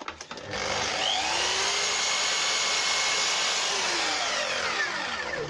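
Mitre saw starting up, its motor rising to full speed, then running steadily while the blade cuts a mitre in a strip of tulipwood beading. Near the end it is switched off and winds down with a falling whine.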